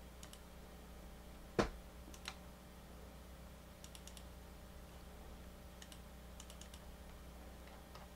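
Faint computer mouse clicks, mostly quick double-clicks, with one louder dull knock about a second and a half in.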